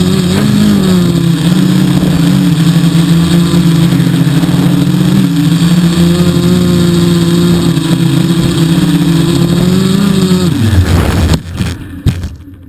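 3DR quadcopter's electric motors and propellers humming steadily with a wavering pitch. About ten and a half seconds in they wind down and stop abruptly, followed by a couple of faint knocks.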